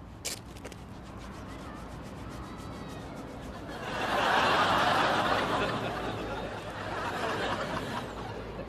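Audience laughter swelling up about four seconds in, loudest for a second or two, then fading away gradually.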